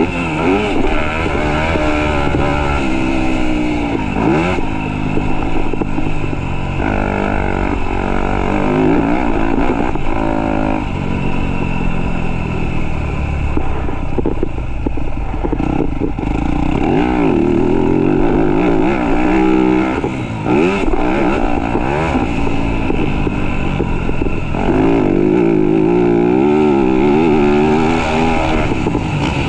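Motocross dirt bike engine revving hard through a practice lap, its pitch climbing and dropping again and again as the throttle opens and closes.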